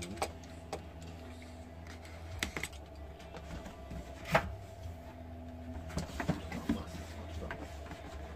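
Large cardboard box being handled on a table: scattered taps, knocks and scuffs of cardboard as it is shifted and its top flap is opened, over a steady low hum.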